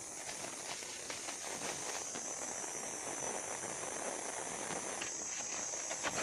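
Outdoor ambience: a steady high-pitched hiss with rustling and scattered small clicks over it.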